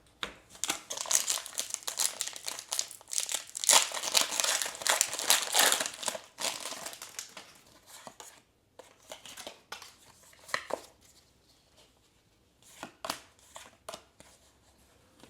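Foil booster pack wrapper crinkling and tearing open for about the first eight seconds, then scattered soft flicks as the trading cards are handled and looked through.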